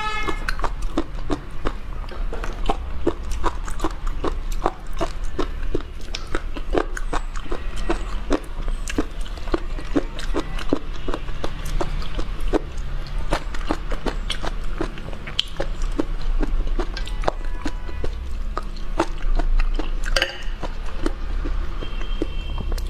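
Close-miked wet mouth clicks and sucking from eating pickled mud snails, several sharp clicks a second.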